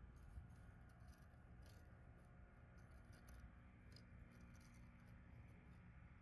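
Near silence with faint, irregular light ticks: line paying out from an open spinning reel as the lure sinks down the ice hole.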